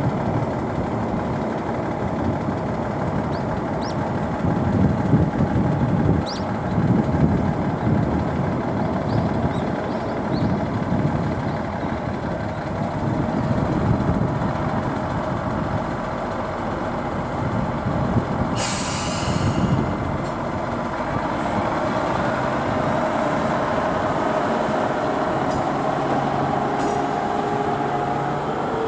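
Diesel railcar running with a steady low rumble, with a short hiss of released air about two-thirds of the way through.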